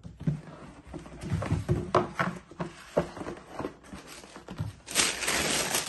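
Cardboard shoe box being handled and its lid worked off: a run of light knocks and scrapes, then a rustle lasting about a second near the end.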